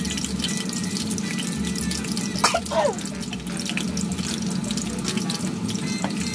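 Battered lotus-root slices deep-frying in hot oil: a steady, dense crackling sizzle. A brief sliding tone sounds about two and a half seconds in.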